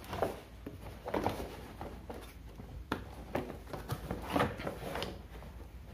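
Cardboard shipping box being handled: its flaps rustle and scrape, with several irregular light knocks.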